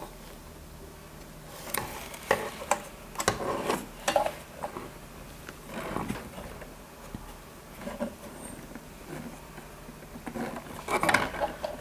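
Handling noise from working on the amplifier's circuit board and casing: irregular clicks, knocks and brief scrapes over a faint steady hum.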